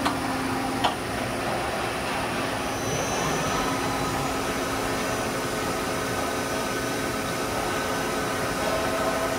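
Daewoo Puma 8 CNC lathe running under power: a steady machine hum and whine with several held tones, and a higher tone joining about three seconds in. Two sharp clicks sound in the first second.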